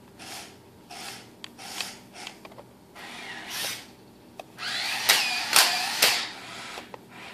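Electric gear motors of a Combat Creatures Attacknid spider robot toy whirring in short bursts as it is driven. The loudest and longest run comes about five to six seconds in, with the whine's pitch sliding up and down, and there are scattered clicks.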